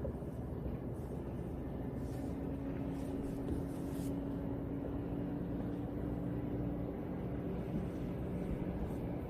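Steady low rumble of a running motor, with a faint steady hum through the middle few seconds.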